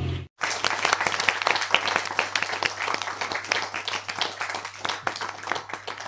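Applause with many hands clapping, starting abruptly just after the start and thinning out toward the end, over a low steady hum.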